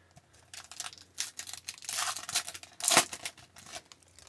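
A hockey card pack wrapper crinkling and being torn open, a run of papery crackles with a denser stretch about two seconds in and one sharp crack near three seconds, the loudest moment.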